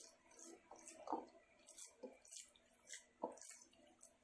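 A hand kneading raw ground beef burger mixture in a plastic bowl, making faint, irregular soft wet sounds as the meat is squeezed and turned.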